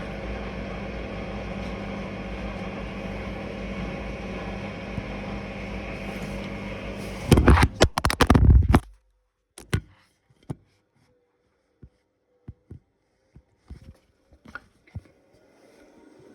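Bauknecht washing machine in its spin cycle, giving a steady rushing drone with a low hum. About seven seconds in, loud clattering knocks go on for about a second and a half, then the sound cuts off to near silence with a few scattered faint clicks.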